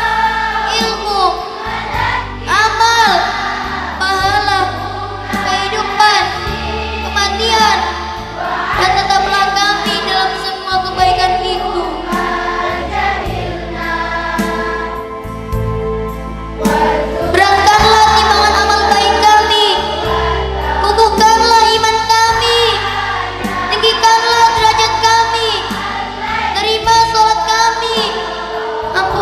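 Singing over instrumental backing music: a wavering vocal melody over held low backing notes, with a brief lull about halfway through.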